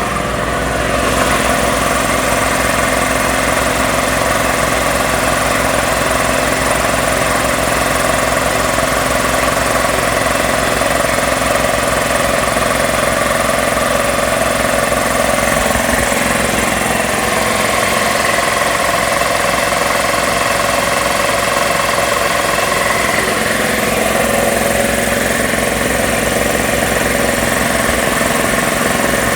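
Magna Force two-stage air compressor running steadily, its electric motor turning the belt-driven pump as it pumps air.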